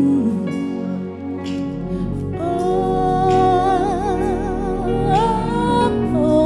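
Slow gospel worship music, sustained chords under it. From about two seconds in, a voice holds a long note with vibrato and then steps up higher before letting go.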